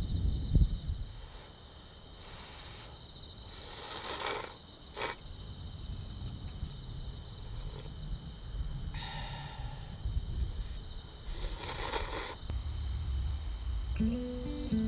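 Chorus of night insects trilling in one steady, unbroken high tone, with a few brief soft rustles; music comes in near the end.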